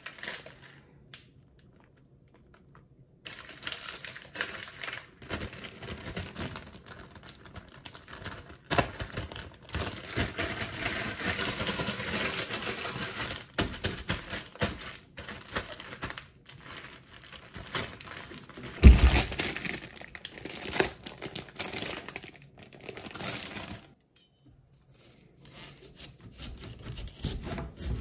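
Plastic zip-top bag crinkling and rustling as it is handled and pressed flat over sliced cucumbers and pickling seasoning. A single low thump comes about two-thirds of the way in.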